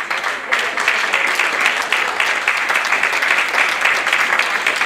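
Congregation applauding, dense steady clapping.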